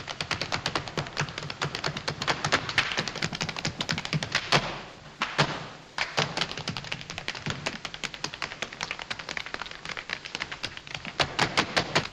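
Two dancers' tap shoes beating out rapid tap-dance rhythms on a hard stage floor, with no orchestra under them. The taps let up briefly about halfway, then pick up again.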